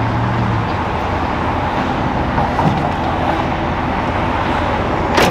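Steady road traffic noise from passing cars. A low steady tone stops about half a second in, and a single sharp knock comes near the end.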